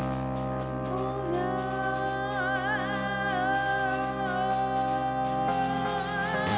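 A woman singing live into a microphone over a DJ's electronic backing track of sustained synth chords and bass. She holds one long note with vibrato from about a second in.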